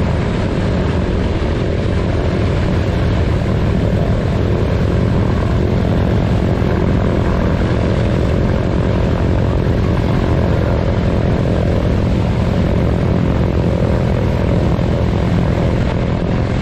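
Nine-cylinder radial aircraft engine running steadily on a parked plane, propeller turning. The engine is being run with cowl flaps open to cool off before shutdown.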